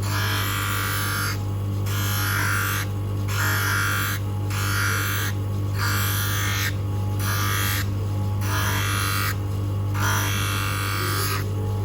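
Electric motor of a manual three-stone lens edging machine humming steadily, with a grinding hiss that comes and goes about every second as a spectacle lens is pressed against the stone and eased off.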